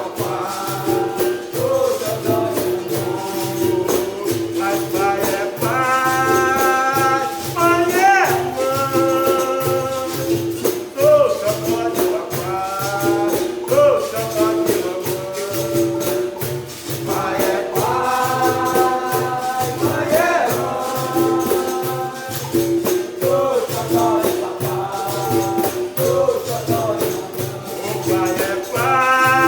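Capoeira roda music in the benguela rhythm: berimbau and pandeiro playing a steady rhythm, with voices singing phrases over it.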